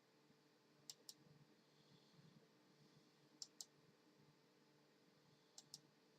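Near silence with a faint steady hum, broken by three pairs of short, sharp clicks about two and a half seconds apart.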